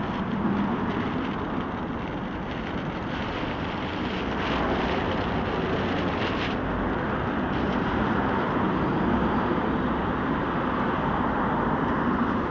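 Steady road traffic noise from passing cars, growing a little louder about four seconds in.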